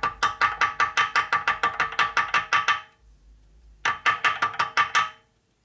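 Rapid light hammer taps on a steel tool held against a screw in an aluminium transmission cover, about seven taps a second, each with a short metallic ring. A long run of taps, a brief pause near the middle, then a shorter run.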